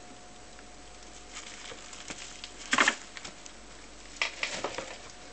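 A cat pawing and scratching in a litter box lined with a plastic bag: short crinkling, scraping bursts, loudest a little under three seconds in and again in a cluster just past four seconds.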